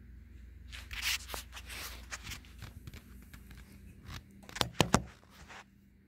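Rustling, scraping handling noise from a handheld camera and a person moving, with a few sharp clicks near the end, over a faint steady low hum.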